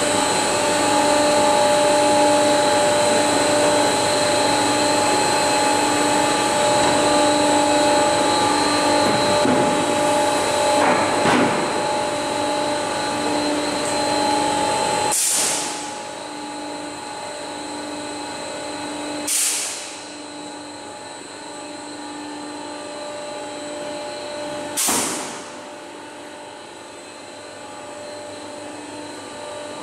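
Laminating line machinery running: a steady mechanical drone with several held tones and a faintly pulsing hum. In the second half come three short, sharp hissing bursts a few seconds apart, and after the first the drone runs noticeably quieter.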